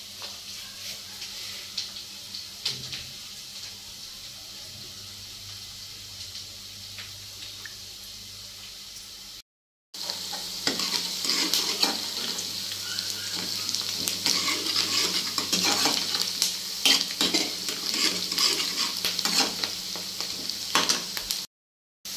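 Chopped onion, garlic and coriander frying in hot mustard oil in a kadai, sizzling steadily, with a steel ladle stirring and clinking against the pan. The sound cuts out briefly about halfway. After that the sizzle is louder and the ladle scrapes and clinks often.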